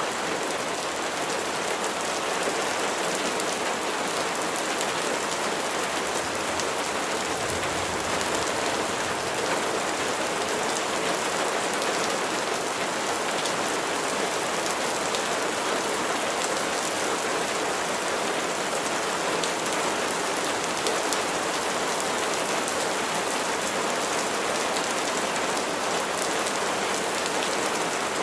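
Steady rain falling, a dense even hiss with the patter of individual drops hitting a surface.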